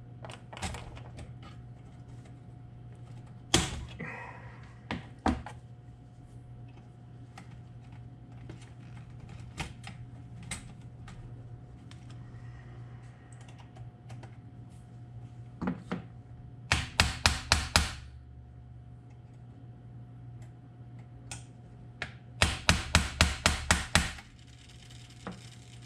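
Scattered metal clicks and knocks from working on a vintage toaster's chrome-and-steel mechanism, with two quick runs of about seven metal-on-metal taps each, one about 17 seconds in and one about 22 seconds in, as the timer mechanism is knocked loose. A low steady hum runs underneath.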